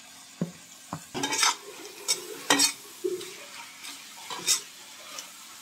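A spatula stirring pumpkin leaves and stalks into frying masala in a metal kadai: several short scrapes and knocks against the pan over a faint sizzle.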